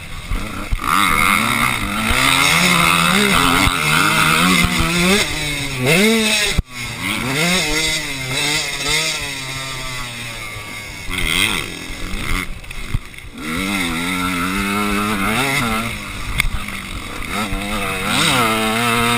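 Onboard sound of a KTM motocross bike racing: the engine revs rise and fall over and over as the rider shifts and rolls on and off the throttle. The sound drops out sharply for a moment about six and a half seconds in.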